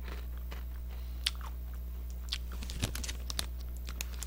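Close-up chewing and crunching of a chocolate-coated Pepero biscuit stick, with scattered sharp clicks and crackles that come thicker in the second half as the clear plastic wrapper is handled.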